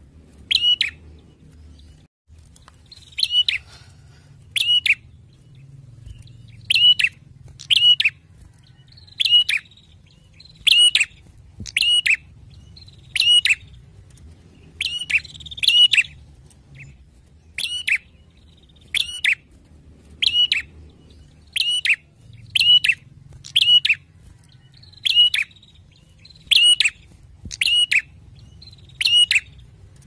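Caged male tailorbird (prenjak) singing loud, ringing calls: short sharp notes repeated about once a second, often in quick pairs.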